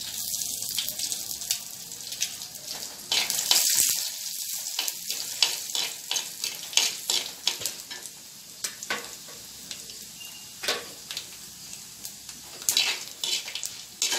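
Dried red chillies and lentils frying in hot oil in a clay pot, sizzling and crackling, stirred with a perforated steel spatula that scrapes and taps against the pot. The sizzle is loudest about three to four seconds in.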